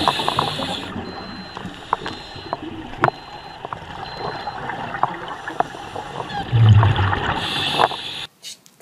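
Underwater sound of a scuba diver breathing through a regulator: hissing and gurgling bubbles, with scattered sharp clicks and a louder low rumble of bubbles about two-thirds of the way through. It cuts off suddenly near the end.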